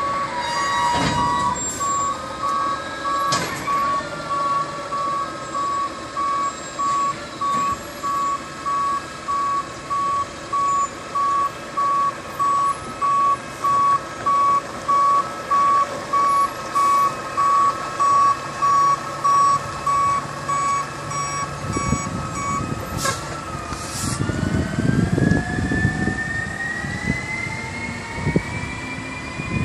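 Garbage truck's reversing alarm beeping about once a second, then stopping. The truck's engine then rises steadily in pitch as it pulls away.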